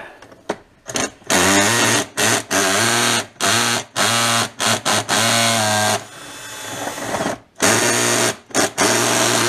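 Ozito cordless drill running in about a dozen short trigger bursts, each under a second, with a steady motor whine that starts and stops abruptly.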